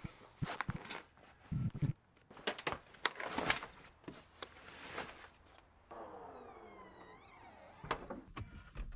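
Rustling, clicks and knocks of boots being laced and gear handled in an SUV's cargo area. Then, about six seconds in, a motor whine that slides down in pitch and rises sharply at its end, followed by a thump: the Toyota SUV's rear liftgate closing.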